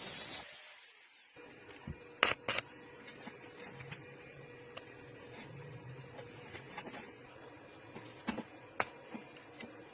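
Scattered sharp clicks and taps: the loudest two come close together a little over two seconds in, with more near the end. A faint steady hum runs underneath, and a noisy machine-like hiss fades out at the very start.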